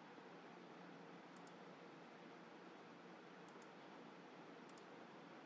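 Near silence: faint steady hiss with a few soft computer mouse clicks, each a quick double click of press and release.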